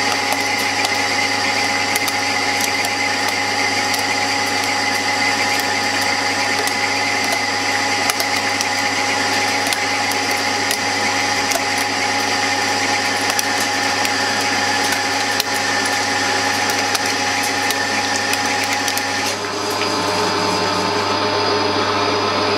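Warco GH-1330 gear-head lathe running a cut with a carbide insert at a raised feed: a steady gear whine and motor hum, with the motor loaded a little but not slowing. About 19 seconds in the whine changes pitch.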